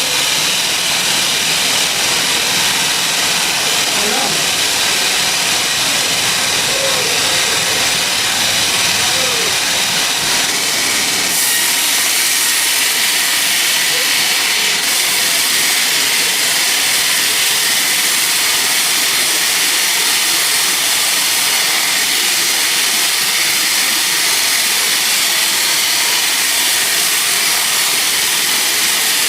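Sawmill saw running steadily through a teak log: a loud, even, hiss-like noise that shifts slightly about eleven seconds in.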